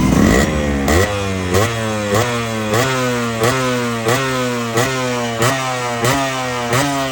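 Yamaha RX115's two-stroke single-cylinder engine being revved in quick, even throttle blips, about one and a half a second. On each blip the revs jump and then fall away.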